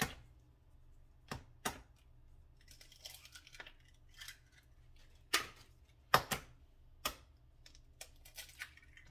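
Eggs being cracked by hand: sharp taps of the shells against a hard edge, twice about a second and a half in and again in a cluster around five to seven seconds, with softer crackling of shell being pulled apart in between.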